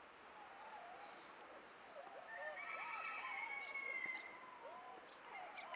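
Six-week-old puppy whimpering softly in short wavering squeaks and whines, with a longer, higher whine around the middle.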